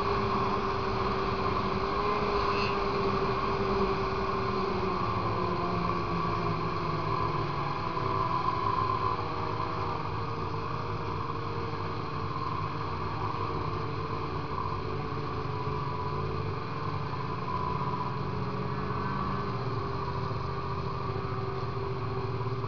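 The two-stroke VES 800 engine of a 2000 Polaris 800 RMK snowmobile with an SLP aftermarket pipe, running steadily under way. Its drone wavers slightly in pitch in the first few seconds, then holds level.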